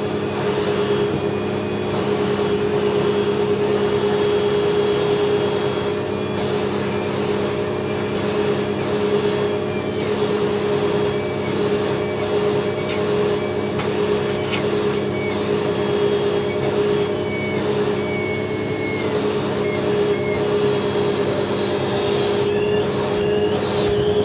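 Sebo upright vacuum cleaner running steadily with its hose sucking dust off a round filter. A high whistle comes and goes about once a second, some whistles falling in pitch as they stop.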